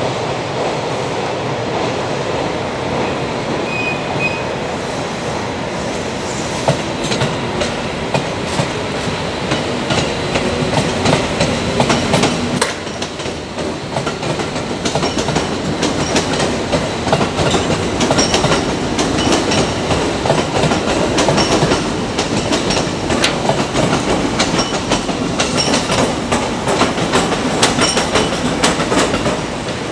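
Freight train wheels clattering over rail joints as a train rolls past, a steady rail rumble with a run of sharp clicks through the second half.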